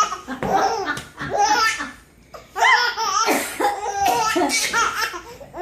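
Baby laughing in high-pitched bouts, with a short pause about two seconds in before the laughter picks up again.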